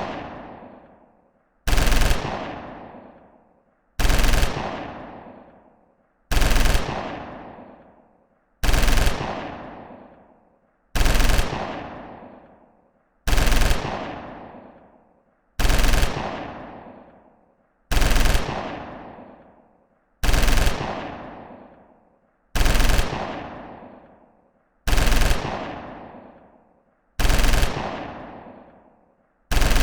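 Machine gun fire sound effect: short bursts of fire repeated about every two and a half seconds, each dying away in a long echoing tail.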